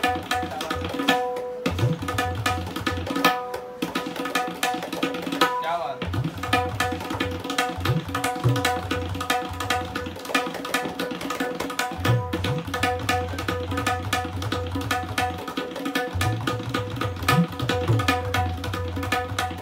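Tabla played solo in quick, continuous strokes: a two-year-old handmade tabla pair, the dayan ringing at a steady pitch over the strokes and the bayan's bass sounding in spells, its pitch bent upward now and then under the heel of the hand.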